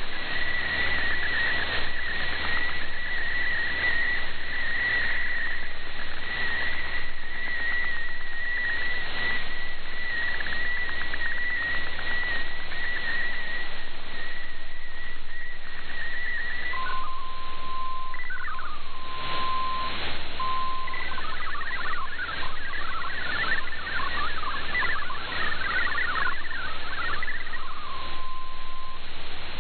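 Shortwave radio static with a digital MFSK data transmission. First comes a single high, slightly wavering tone that carries a picture. About halfway through it stops, and after a short break a lower steady tone and then a rapid warble of quickly changing tones follow as text data is sent.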